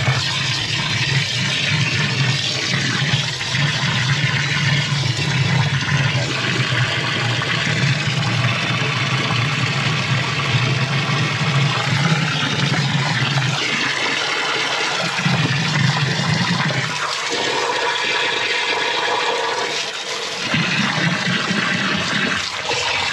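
Garden hose spraying a stream of water into a plastic drain inspection chamber, with water splashing and gushing through the chamber as the toilet-paper blockage breaks up and flushes away down the drain. A low rushing sound eases off about two-thirds of the way through and comes back in two short surges.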